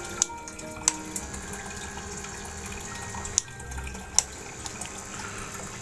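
Steady bubbling and splashing of water in an aquarium, driven by a small DIY 3.7-volt air pump aerator running at its highest speed, with a few sharp ticks.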